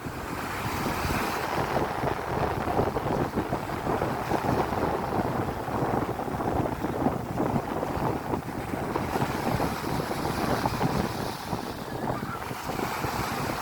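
Strong gusty wind buffeting the microphone, with surf from the sea beneath it.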